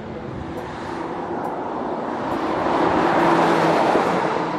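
Porsche Macan Turbo's 2.9-litre twin-turbo V6 driving past with tyre noise on tarmac, growing louder to a peak about three seconds in as the car goes by, then easing off.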